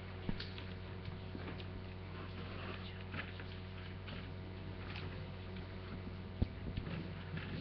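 Steady electrical mains hum over the murmur of a standing crowd, with scattered small knocks and rustles and one sharper knock about six and a half seconds in.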